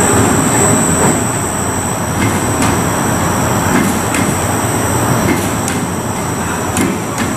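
Roller coaster trains moving slowly on the station and transfer track as they are put away in the storage shed. A steady rumble, with several sharp clanks from about two seconds in.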